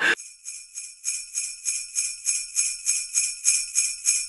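Jingle bells shaken in an even rhythm, about four shakes a second, beginning just after voices and laughter cut off abruptly at the start.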